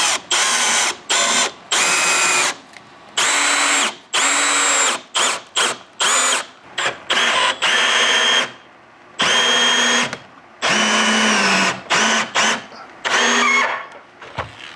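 Power drill driving a 6-inch structural truss screw at an angle through the plates into a rafter, run in repeated short bursts, each a steady motor whine, stopping and starting about a dozen times.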